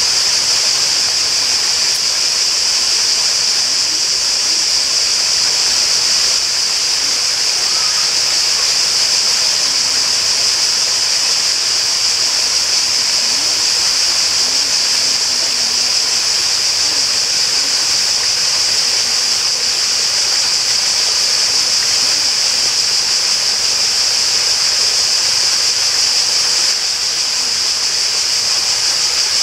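Steady rush of falling water, a waterfall or stream, with an even high hiss that does not change throughout.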